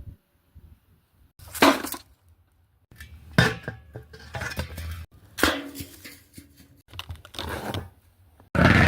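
A string of separate metal sound effects with short silent gaps between them: a sharp metallic hit, then clanking knocks and clatters in several short takes. Near the end a loud, steady rough noise begins.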